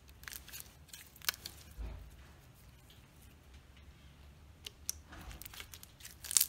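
Thick white slime being kneaded, poked and stretched by hand, giving a handful of sharp little clicks and sticky pops over a faint rustle, the loudest near the end.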